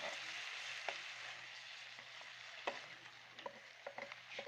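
Chicken and chilli masala sizzling in a karahi just after a little water has been added, the sizzle loudest at first and slowly easing. A spoon scrapes and clicks against the pan now and then as it is stirred.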